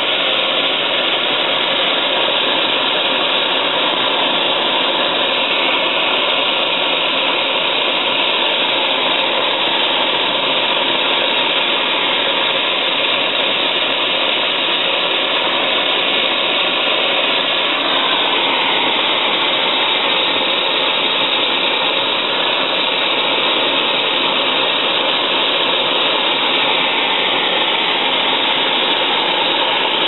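Gas brazing torch burning steadily with a constant rushing hiss while it heats a copper fitting for silver brazing; its tone shifts slightly twice as the flame is moved about the joint.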